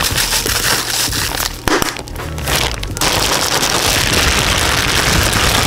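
Plastic food bag of chicken and spices crinkling and crackling as it is handled and squeezed to coat the meat. About three seconds in it gives way abruptly to a steady hissing rush.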